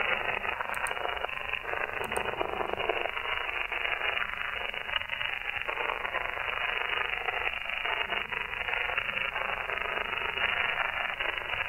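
Shortwave receiver hiss and static from a web SDR tuned to the 27 MHz CB band in upper sideband: empty-band noise squeezed into a narrow, telephone-like voice bandwidth, with a steady, slightly fluttering hiss.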